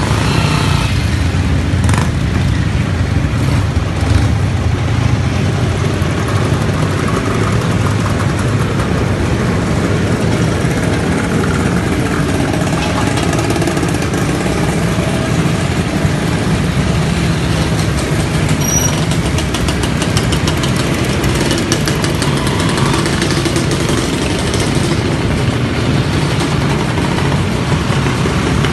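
A procession of classic motorcycles and motor scooters riding slowly past at low revs, many engines running together, steady and loud.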